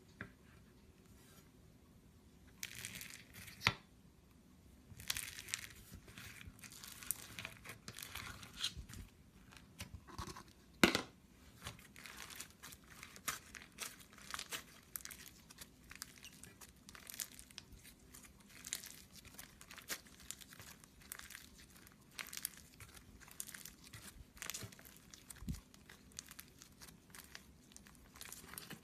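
Crunchy slime being worked, giving a steady run of crisp crackling and crunching, with one louder snap about eleven seconds in.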